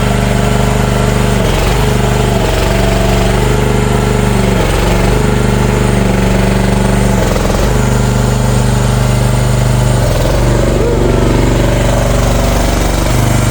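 The small engine of a CFG MX15RX mini excavator running loud and steady, its pitch dipping briefly about five times as it bogs down for a moment, then settling a little higher near the end.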